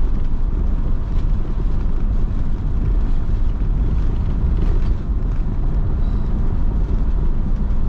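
Steady low rumble of a motorhome driving at road speed: engine and tyre noise heard from inside the cab.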